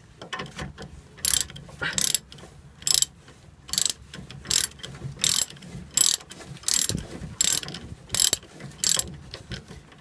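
Ratchet wrench being swung back and forth to undo a brake caliper bolt. Its pawl clicks in short bursts, roughly one every three-quarters of a second, starting about a second in.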